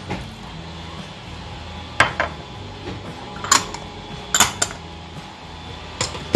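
Small white ceramic dishes and a measuring cup clinking and being set down on a stone countertop: a handful of separate sharp clinks and knocks spaced a second or so apart.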